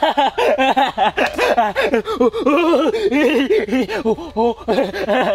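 A man's voice calling out loudly and rapidly at a high pitch, in quick rising-and-falling syllables.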